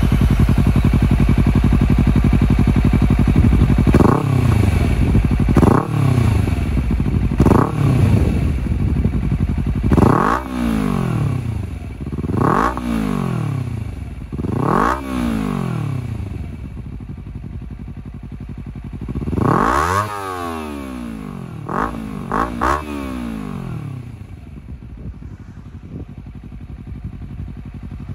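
Honda CBR250RR (MC51) 249 cc parallel-twin engine through a Moriwaki slip-on muffler with an SP Tadao Power Box pipe, idling just after starting and being blipped with the throttle. There are about nine quick revs, each a sharp rise and fall in pitch, over the first twenty-odd seconds, and then it settles to a steady idle.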